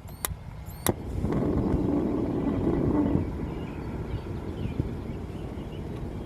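Two sharp ticks in the first second from the Dometic refrigerator's LP-gas spark igniter trying to light the burner. After that a broad rumble of road traffic swells and then settles into a steady background.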